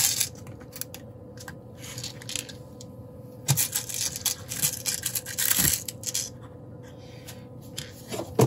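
Small stainless steel machine screws clinking and rattling as fingers rummage through a compartment of a plastic parts organizer, in short bursts near the start and again around the middle.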